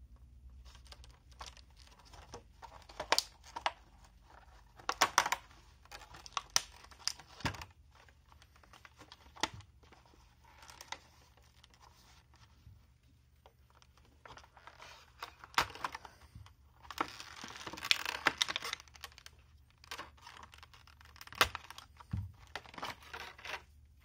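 Stiff clear plastic clamshell packaging handled and pried open by hand: irregular sharp plastic clicks and crackles, with a longer stretch of crinkling and tearing about three-quarters of the way through.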